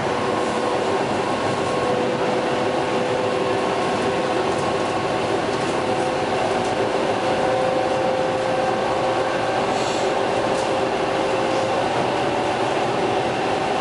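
Inside an EP2D electric multiple unit running at speed: a steady running noise of wheels on rail, with several steady whining tones over it. Two faint ticks about ten seconds in.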